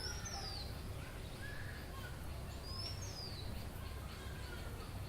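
Village outdoor ambience: birds calling over a steady low background rumble. A high, quick whistle that sweeps down sounds near the start and again about three seconds in, with softer chirps between.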